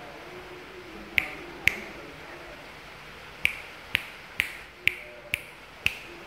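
Fingers snapping: eight sharp snaps, a pair a little over a second in, then a steady run of six about half a second apart.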